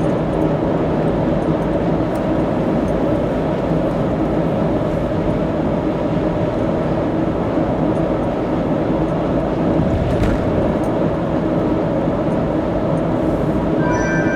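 Car travelling steadily along an expressway: constant engine and tyre road noise with a low steady hum.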